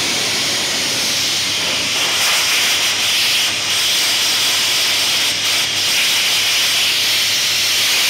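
Pressure-washer lance spraying a steady, loud hissing jet of hot water onto metal table legs and frames, blasting off baked-on kitchen grease.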